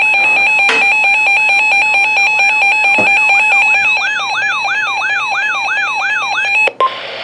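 Weather radio emergency alert tones: a steady, loud attention tone with a siren-like rising sweep repeating two to three times a second over it. It all cuts off abruptly near the end, just before the warning message starts.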